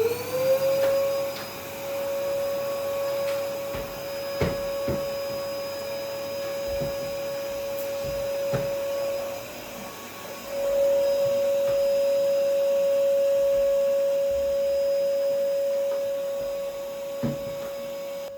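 Vacuum cleaner motor spinning up to a steady high whine, then running with a few light knocks along the way. About ten seconds in it drops briefly and comes back louder.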